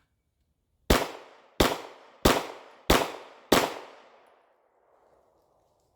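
Five shots from a Glock 19 9 mm pistol, fired in quick succession about two-thirds of a second apart, each with a rolling echo that dies away after the last shot.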